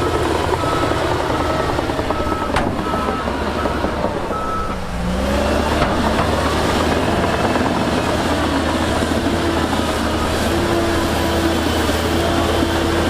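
Heavy earthmoving machine's diesel engine running, with a reversing alarm giving a steady series of short high beeps for the first four seconds. About five seconds in the engine revs up, and a lower-pitched beeping follows.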